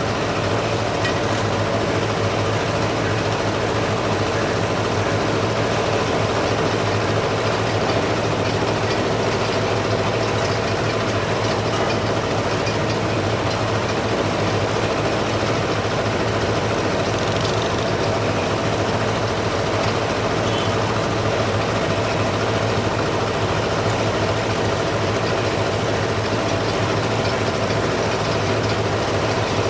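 A large engine running steadily, a continuous mechanical drone with several steady hum tones over a wash of noise.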